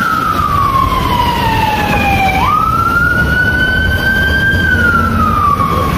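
Fire truck siren on a six-wheeled crash tender, a slow wail over steady low noise. It falls for about two and a half seconds, sweeps quickly back up, holds, and falls again near the end.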